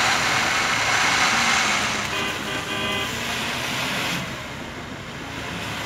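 Land Rover Discovery 300Tdi's turbodiesel engine working hard as it pushes through deep snow. A car horn sounds once for about a second, about two seconds in.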